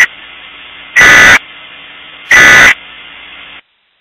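Emergency Alert System end-of-message (EOM) data bursts: the end of one short, loud digital burst, then two more a little over a second apart. Between them is a low background hiss, which cuts off shortly before the end.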